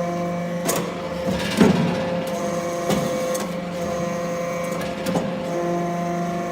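Hydraulic scrap-metal briquetting press running: a steady hum from its pump and motor, broken by several sharp knocks and clunks. The loudest knock comes about a second and a half in.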